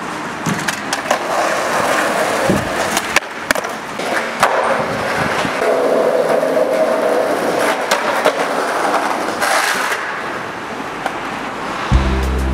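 Skateboard wheels rolling over pavement, a steady grinding hiss, broken by several sharp clacks of the board's deck and wheels hitting the ground.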